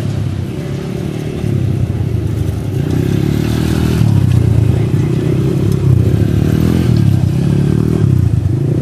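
ATV engine running and revving, getting louder about a second and a half in and again around four seconds in.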